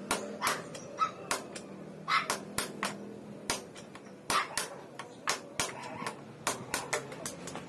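Sharp metal-on-metal taps, about two or three a second at an uneven pace, as a tool knocks the steering head (knuckle) bearing cup out of a Keeway Cafe Racer 152 motorcycle's frame.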